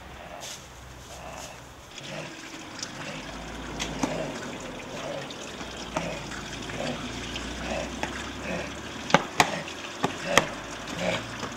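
Water trickling and splashing from a street fountain, with a few sharp clicks near the end.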